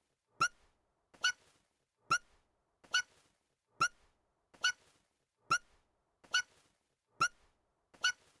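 An anime girl's voiced hiccups: short, high-pitched "hic" sounds repeating evenly, ten times, a little under a second apart, each with a quick upward flick in pitch.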